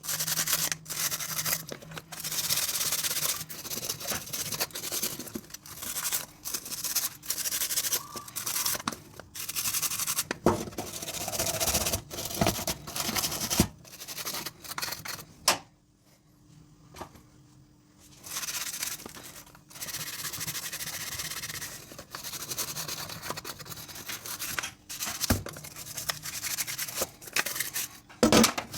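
Dishes being scrubbed by hand: repeated rubbing and scraping strokes, with a few knocks of dishes, and a short quiet pause about halfway through.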